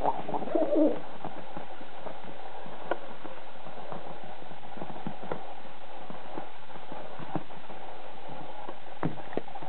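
Pet pigeon cooing during the first second, then a few scattered soft taps as it pecks and scuffles, over a steady hiss.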